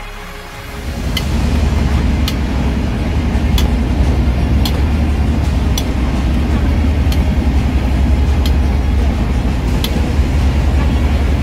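Steady low rumble of a moving passenger train heard from inside the coach. About once a second it is broken by a sharp metallic clink, the snack vendor's spoon striking his steel mixing tin.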